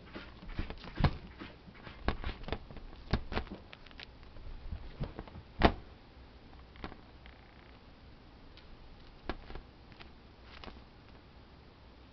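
Scattered soft knocks and taps, thick in the first six seconds with the loudest about five and a half seconds in, then only a few more: handling and movement noise around a kitten on a quilted mat.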